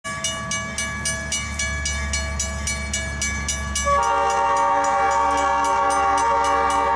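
Grade-crossing warning bell ringing steadily, about four strokes a second. About four seconds in, an approaching locomotive starts blowing for the crossing: a loud chord of several notes, held.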